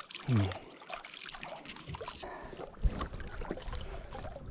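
Water splashing and sloshing against an inflatable paddleboard as a large yellowtail is grabbed by hand and hauled aboard, with a sharp thump about three seconds in.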